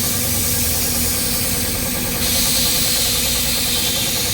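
An engine running steadily at idle, with a high air hiss that starts about two seconds in.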